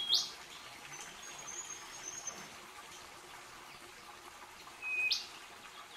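A small bird calling: short notes that hold one pitch and then sweep sharply upward, one right at the start and a louder one about five seconds in, with faint high twittering in between.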